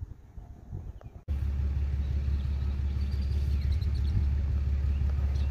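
Wind buffeting the microphone: a loud, steady low rumble that starts suddenly about a second in, with a few faint bird chirps above it.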